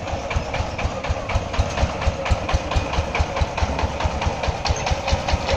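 Single-cylinder diesel engine of a two-wheeled power tiller with a trolley, running with a steady, even putt-putt of about four or five beats a second.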